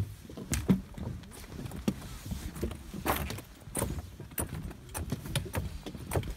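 Footsteps and trekking-pole tips knocking on wooden stair planks as hikers climb: a run of irregular clicks and clacks over a low rumble.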